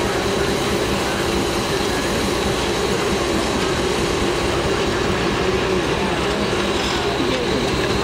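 Steam traction engine driving a circular sawmill through a long flat belt: engine, belt and spinning saw blade running steadily, with a thin steady high whine over the rumble.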